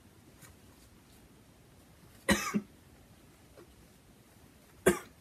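A person coughing: a double cough about two seconds in and a single short one near the end.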